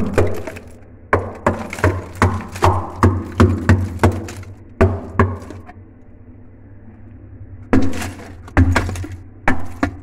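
Claw hammer striking and chipping thick frost and ice off a freezer wall: rapid sharp knocks, about three a second. The knocking pauses for about two seconds past the middle, then starts again.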